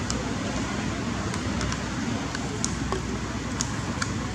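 Steady outdoor background noise, a hiss with a low rumble, with a few short high-pitched ticks scattered through it.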